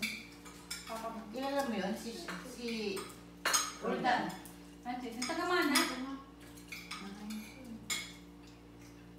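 Spoons and forks clinking and scraping against plates and bowls as people eat at a dinner table: irregular sharp clinks, the loudest a few seconds in, over a steady low hum.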